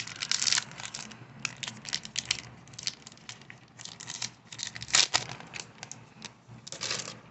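A foil baseball card pack being torn open, its wrapper crinkling in irregular crackles, with louder rips near the start, about five seconds in and just before the end.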